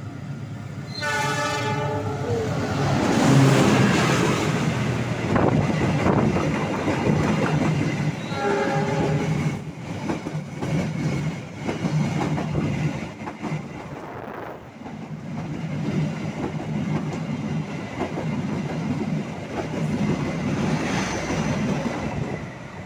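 Diesel-electric locomotive sounding its multi-tone horn twice as it passes on the adjacent track, a longer blast then a shorter one several seconds later. After that comes the steady rumble and rhythmic clickety-clack of its passenger cars' wheels over the rail joints.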